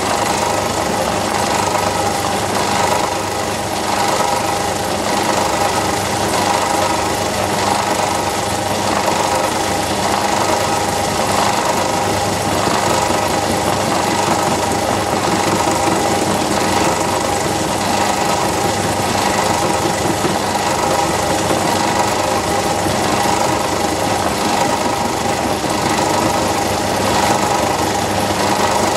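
Myford lathe running, spinning a milling cutter in its headstock chuck that cuts a quick-change tool holder held in a vertical milling slide, fed slowly by hand. A steady mechanical hum and whine.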